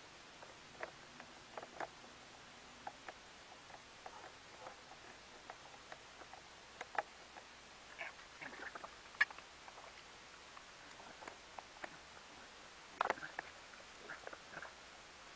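Hand tools and small metal battery-terminal bolts being handled in a plastic battery box: scattered light clicks, taps and scrapes at an uneven pace, with a short cluster of louder clicks near the end.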